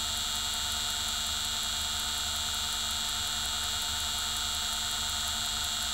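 Variable-speed brushless DC servo motor belt-driving an 8 mm watchmaker's lathe, running steadily with an even hum and hiss.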